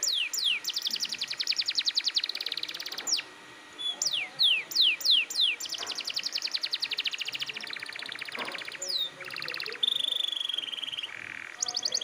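Domestic canary singing hard: runs of quick down-slurred whistles alternating with fast rolling trills, a short pause about three seconds in, then a steady held whistle and a lower note near the end before the trills start again.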